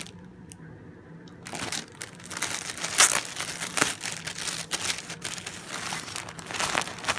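A clear plastic bag crinkling and crackling as it is handled, in irregular sharp rustles. It is quieter for the first second and a half, with the loudest crackle about three seconds in.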